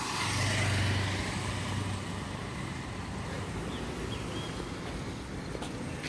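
Motorcycle passing close by, its engine hum loudest about a second in and then fading, followed by steady street traffic noise.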